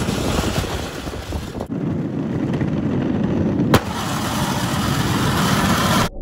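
Go-cart's small engine running as the cart drives, a steady rough noise that changes abruptly twice, about two and four seconds in.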